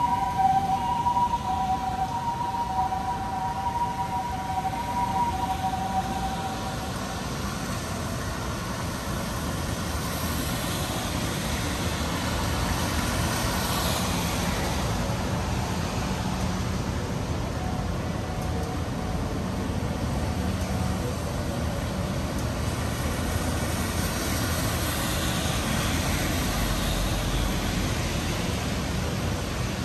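An emergency vehicle's two-tone siren fading away over the first several seconds, over a steady city traffic rumble. Later, vehicles pass with a rising and falling swish.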